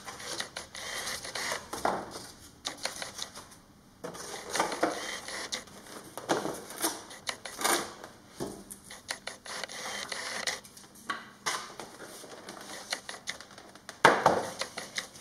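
Moulded foam airframe parts of an RC plane being handled on a tabletop: irregular taps, knocks and scrapes as foam pieces are set down, shifted and rubbed against each other and the table, with a louder cluster near the end.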